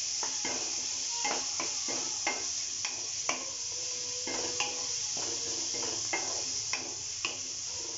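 Chopped onions sizzling in hot coconut oil in a pan while being stirred, the utensil knocking and scraping against the pan many times at an irregular pace.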